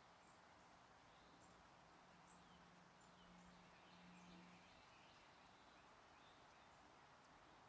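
Faint distant birds chirping now and then over a steady hiss, with a low steady hum that stops about five seconds in.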